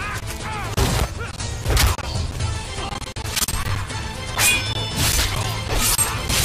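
Staged fight sound effects: about six hard blows and swishes, roughly one a second, over dramatic background music.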